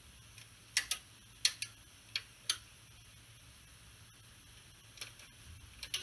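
A handful of sharp, light clicks at irregular intervals, bunched in the first two and a half seconds and a few more near the end.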